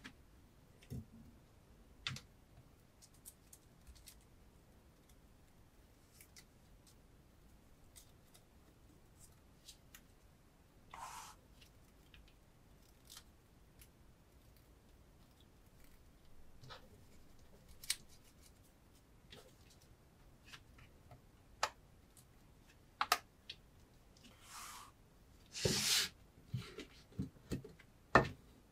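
Kitchen knife blade cutting through test material: sparse clicks and taps of the blade and material on the work surface, with a few short slicing swishes, the loudest cluster near the end.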